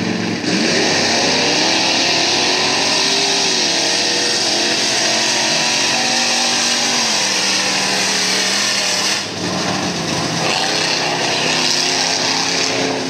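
Mud-racing trucks' engines at full throttle, run hard down a mud track with a loud hissing roar over them. The engine pitch climbs at the launch, steps down as they run, dips briefly about nine seconds in and climbs again.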